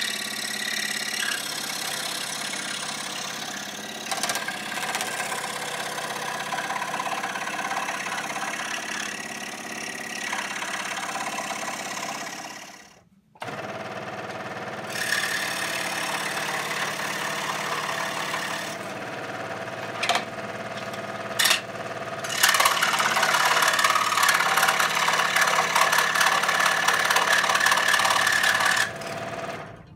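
Scroll saw running and cutting pallet wood, a steady mechanical buzz with faint rattle. It breaks off for a moment about 13 seconds in and gets louder for the last several seconds.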